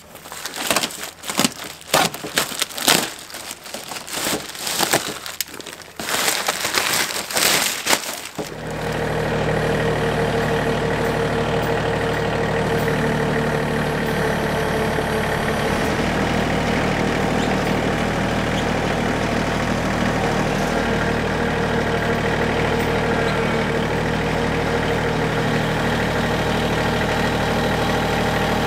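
Plastic wrap being peeled and torn off a new vinyl window, crinkling and crackling irregularly for about eight seconds. Then a compact tractor's engine running steadily while the tractor drives.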